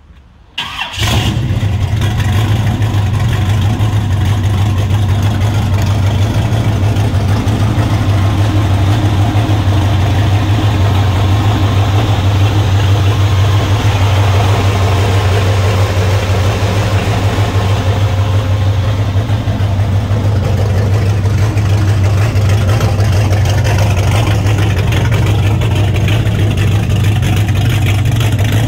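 Big-block V8 engine of a 1953 Ford F100 restomod starting about half a second in, then idling steadily and loudly.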